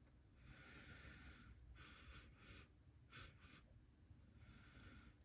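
Faint sniffing and breathing as a person smells a drink: a handful of short breaths through the nose, with a longer one near the start.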